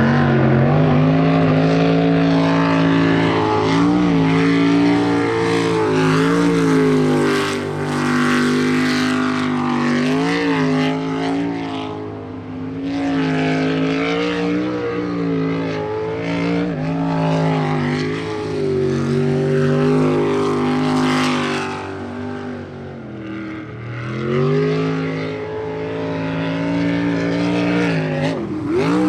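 Jet sprint boat's V8 engine running at high revs through a timed course run. Its pitch drops and climbs again several times as the driver lifts off and powers back on through the turns.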